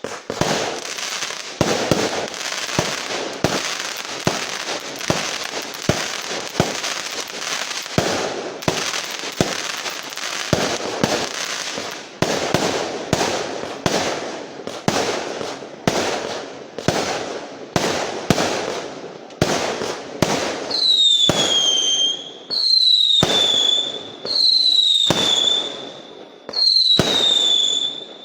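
Fireworks and firecrackers going off: rapid, overlapping bangs and cracks for about twenty seconds, then a run of whistling fireworks, each a pop followed by a falling whistle, about one every second and a half.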